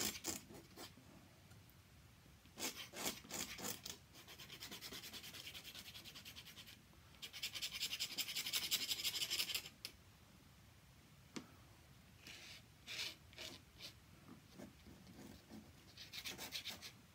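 An ink brush rubbing and scratching across paper: short strokes near the start and end, and two long rasping passes in the middle, the second louder.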